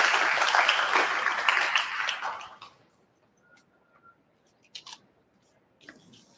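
Applause from a gathered audience that fades out about two and a half seconds in, followed by a few faint clicks and rustles.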